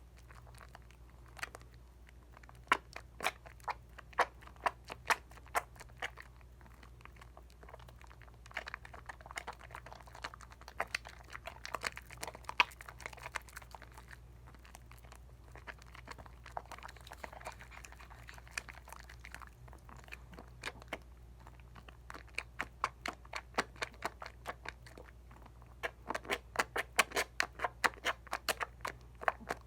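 Hands lathering a bar of Dial coconut soap: wet, squelching suds with many quick crackling clicks. The clicks come fast for the first several seconds and again over the last several, with a softer squishing stretch in the middle.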